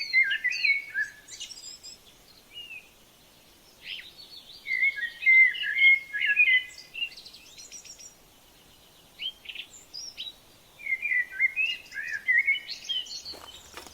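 A songbird singing three bursts of quick, high chirping notes a few seconds apart, with a single click near the end.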